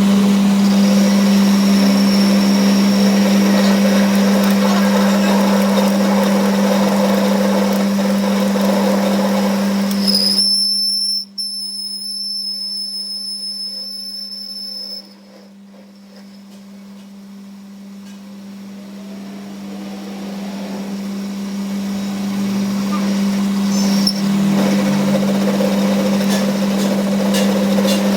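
Workshop machine running with a loud, steady hum. It changes abruptly about ten seconds in, drops away near the middle, then gradually builds back up to a steady hum.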